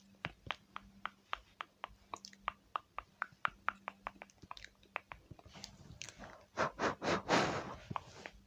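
Close-miked ASMR tapping: a quick run of crisp taps or clicks, about five a second. Near the end a louder brushing rustle takes over.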